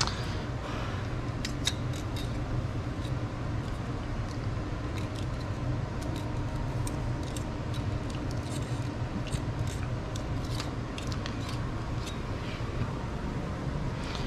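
Light metallic clicks and scrapes of a steel feeler gauge worked between the rocker arms and valve stems of a Honda B18B1 valvetrain while the valve clearance is checked. The clicks come irregularly, over a steady low hum.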